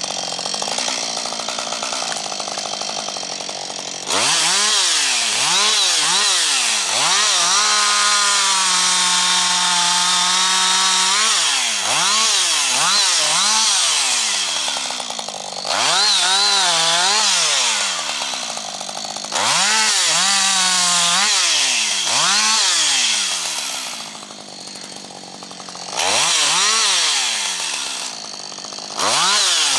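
Husqvarna 555 two-stroke chainsaw idling, then run at full throttle in several long bursts about four seconds in, its pitch dipping and rising before dropping back to idle between bursts. The first-generation AutoTune adjusts the fuelling itself.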